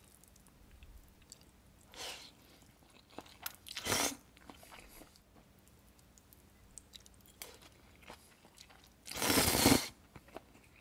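A person eating spicy bibim noodles over rice close to the microphone: bites and chewing in a few short bursts, the loudest and longest near the end.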